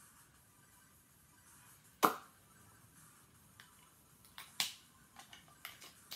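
Handling clicks from a lipstick tube and its small cardboard box: one sharp click about two seconds in, then a scatter of lighter clicks and taps.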